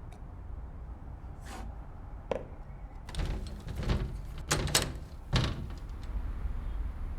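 A handful of sharp knocks and clunks, several close together about halfway through, over a low steady rumble.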